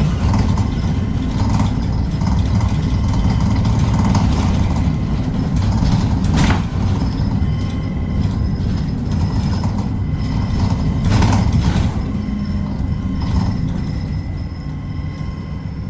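A city bus in motion, heard from inside: a steady low engine and road rumble, with scattered rattles and knocks from the cabin. The loudest knocks come about six and a half seconds in and again around eleven seconds.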